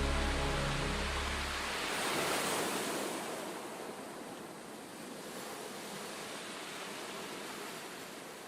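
Sea waves washing in. One surge swells about two seconds in, then a softer, even wash slowly fades. Soft music dies away in the first second and a half.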